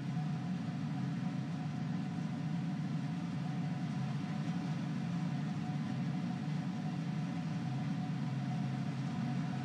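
Steady low hum and rumble of the ambient pad audio at a Falcon 9 launch pad in the final seconds of the countdown, before engine ignition, with faint steady higher tones above it.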